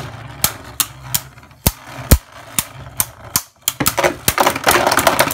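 Twin Nemesis and Kinetic Satomb Beyblade Burst tops spinning in a plastic stadium and clacking against each other in sharp hits, about one every half second, the loudest about two seconds in. A dense rattle of rapid hits follows in the last second and a half.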